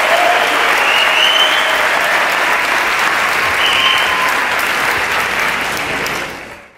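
Audience applauding loudly, with a couple of short high cheers over it. The applause fades out just before the end.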